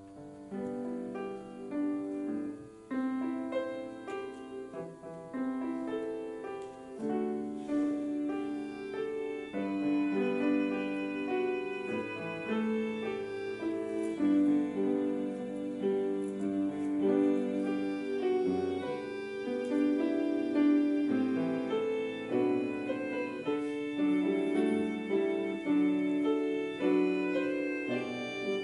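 Instrumental prelude to a church service, played on piano with a violin, a continuous run of notes with some held long.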